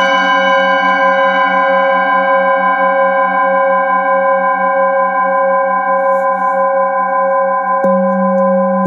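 Hand-held metal singing bowl ringing after a mallet strike: several steady overlapping tones, the deepest one pulsing about twice a second. The bowl is struck again with the mallet about eight seconds in, and its low tone swells up.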